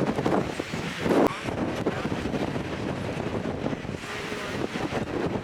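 Strong wind buffeting the microphone in gusts, heaviest in the first second or so, then a steadier rush.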